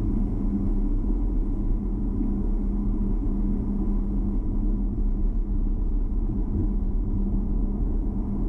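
Steady low rumble of a car driving along: engine and tyre noise with a constant low hum.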